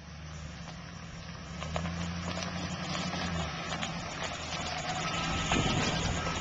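Chevrolet Express passenger van's engine running with a steady low hum as it pulls slowly past towing a boat trailer, growing louder as it comes close about five and a half seconds in. Small scattered crackles of tyres rolling over gravel.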